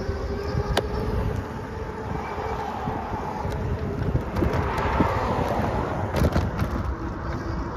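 Wind rumbling on the microphone of a moving bicycle, with street traffic around it; the noise swells for a couple of seconds around the middle, and a few sharp clicks stand out.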